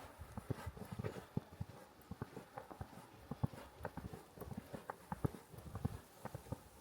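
Boots crunching through fresh snow at a walking pace, a run of many short, uneven crunches.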